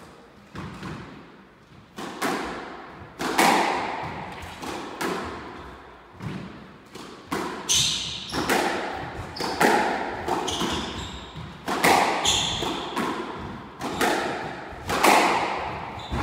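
Squash rally: the ball is struck by rackets and smacks off the court walls, about one to two hits a second, each echoing in the enclosed court.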